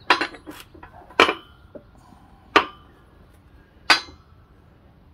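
Hard metal-on-metal clinks of steel tools: a quick cluster of light clinks, then three sharp clanks about a second and a half apart, each ringing briefly.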